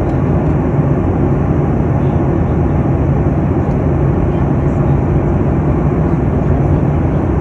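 Steady airliner cabin noise in flight: a constant low rumble of engine and airflow with a faint hum, unbroken throughout.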